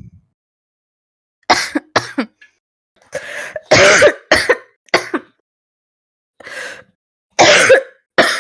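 A young woman's deep, barking cough mixed with heavy throat clearing, coming in repeated short, harsh bursts separated by brief pauses, with one longer loud run in the middle. The uploader presents it as a smoker's cough.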